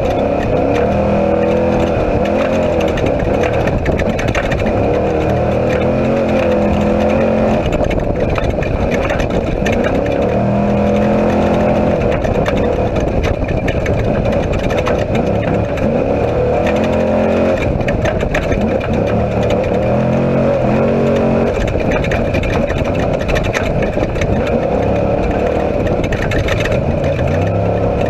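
Engine of an off-road race vehicle heard from inside the cockpit at speed, its pitch rising and falling again and again as the driver accelerates and lifts, over a constant loud din of wind, tyre and chassis noise.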